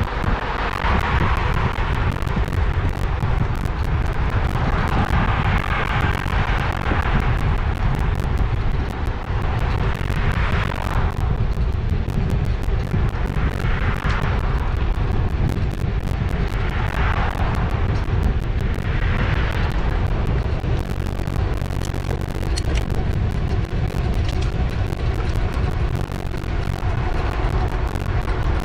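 Wind buffeting the microphone of a camera on a moving e-bike: a steady low rumble, with several swells of higher hiss over the first twenty seconds or so.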